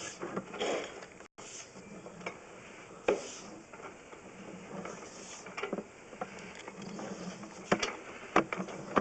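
Faint, scattered clicks and knocks from a sewer inspection camera's push cable being fed along the drain line, over a low steady background.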